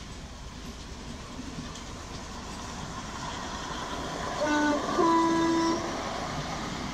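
Miniature-railway model of a Class 66 diesel locomotive sounds its horn twice as it rolls past: a short lower note, then a longer higher one. Under the horn, the small train's wheels rumble on the track and grow louder as it approaches.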